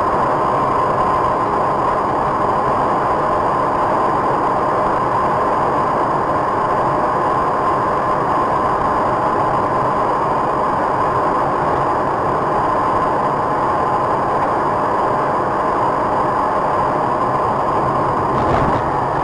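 Steady vehicle engine and road noise, unchanging throughout, with a constant high hum over it.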